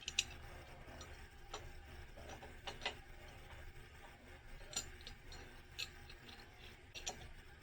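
Scattered sharp metal clicks and taps, about one a second or so, from a wrench working the lock nut on a shotshell press's primer seater as it is tightened, over a low steady hum.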